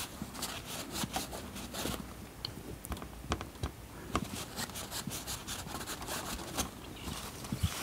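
Cloth rustling and scraping with irregular small clicks and taps, from a tailor handling fabric at close range.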